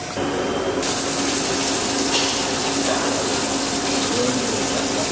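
Water running steadily into an air fryer basket to soak off a week of grease, starting just after the beginning, with a faint low hum under it.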